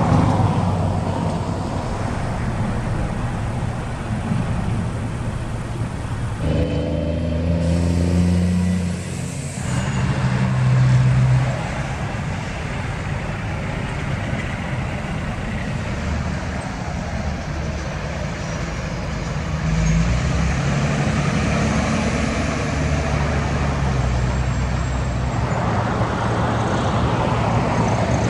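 Road traffic: pickup trucks towing horse trailers and other vehicles passing, a steady mix of engine and tyre noise. Engine hum stands out for a few seconds between about six and ten seconds in, and the sound changes abruptly a few times.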